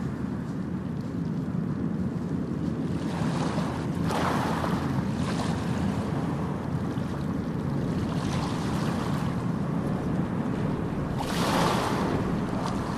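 Steady rushing noise, like moving air buffeting the microphone, swelling into louder hisses three times.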